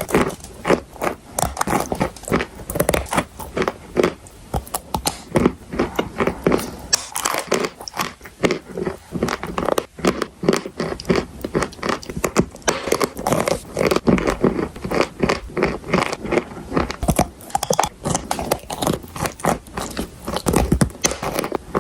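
Close-up crunching and chewing of edible chalk and clay: a dense run of crisp, crackly bites and grinding with no pause.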